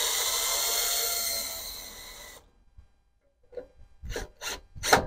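Cordless drill running steadily with a whine, boring a hole through the truck's chequer-plate panel, for about two and a half seconds, fading out as it stops. A few short knocks follow near the end.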